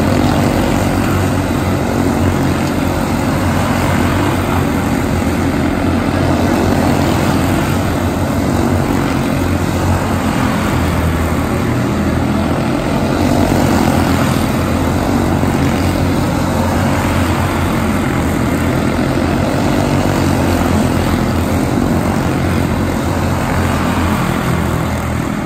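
A pack of quarter midget race cars running at speed on a short oval, their small Honda single-cylinder four-stroke engines sounding together as one loud, steady drone that swells slightly as the pack comes past.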